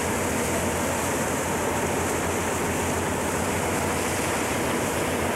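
Steady rushing noise of choppy sea water and wind aboard a moving tour boat, with a low drone underneath.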